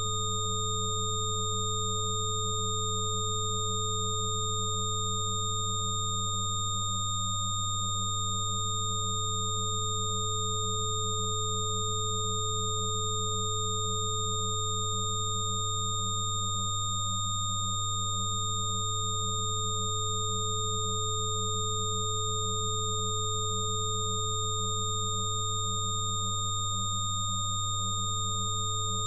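Electronically generated sine tones of a frequency-therapy track: several steady pure tones held together, the lowest one loudest, with higher tones above it. One middle tone dips briefly about every ten seconds.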